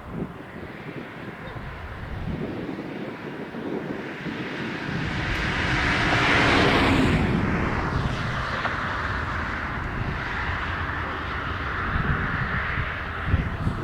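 A diesel freight train passing. The locomotive noise builds to a peak about six seconds in, then settles into a steadier rolling rumble.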